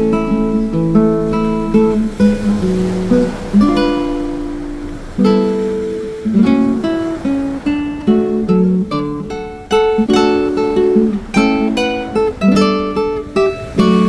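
Background music on acoustic guitar: a steady run of plucked notes and strummed chords.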